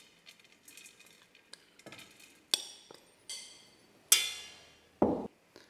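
A metal spoon scraping couscous out of a glass bowl, with soft scrapes and then three sharp clinks that ring briefly; the loudest clink comes about four seconds in.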